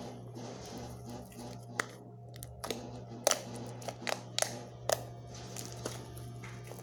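Background music with a steady beat, and several sharp clicks or snaps in the middle as things are handled.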